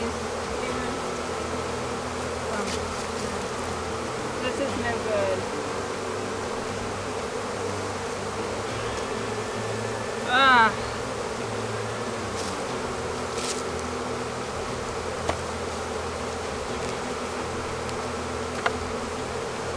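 A mass of honeybees buzzing steadily in a dense hum around an opened hive with bees boiling out over the boxes. About halfway through, a brief, loud, chirping trill of quick rising notes cuts through the buzz.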